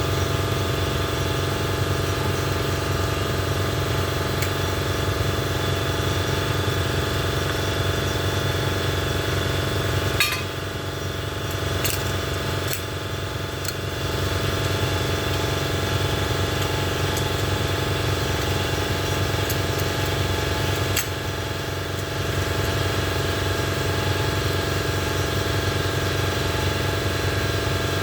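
An engine idling steadily throughout, with a few sharp metallic clicks of shotgun parts being handled, about ten, twelve and twenty-one seconds in.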